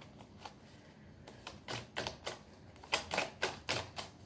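A deck of tarot cards shuffled by hand: a run of short, sharp card snaps and taps, sparse at first and coming more often from about a second in.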